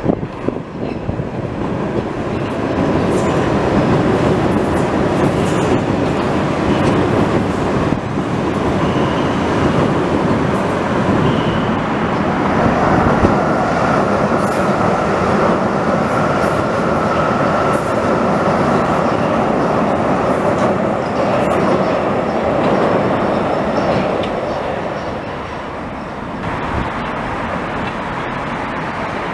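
Vienna U-Bahn metro train running on open track as it comes out of the tunnel and passes close by, a steady rail rumble with a high steady whine while the cars go past. The sound drops off near the end as the train leaves.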